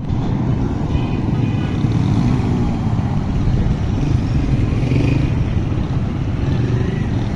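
Roadside traffic: small motorcycle engines and Qingqi motorcycle rickshaws running close by, a steady low engine noise with no single event standing out.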